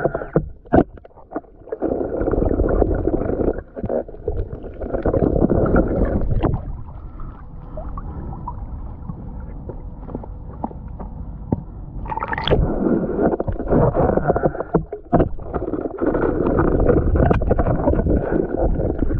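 Muffled gurgling and sloshing of sea water around a waterproof action camera moving through the shallows, with scattered knocks. It goes quieter for a few seconds in the middle, then picks up again.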